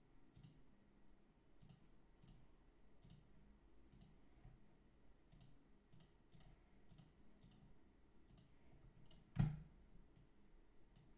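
Faint computer mouse clicks, irregular, about one or two a second, with a single louder thump about nine seconds in.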